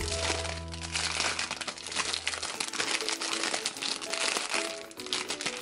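Thin clear plastic bag crinkling continuously as hands fold it back off a soft squishy toy.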